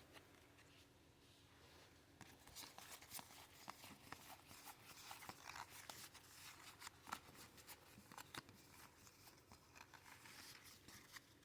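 Faint handling of Pokémon trading cards: small scattered clicks and rustles, starting about two seconds in.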